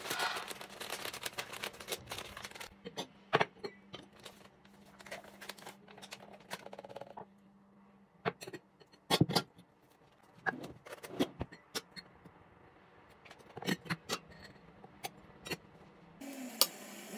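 A string of irregular sharp clicks, taps and knocks, the sound of things being handled and set down, over a faint steady hum that stops about halfway through.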